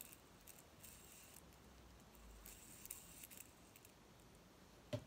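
Near silence, with faint rustles and small clicks of a small plastic fidget spinner being handled, and one sharper click near the end.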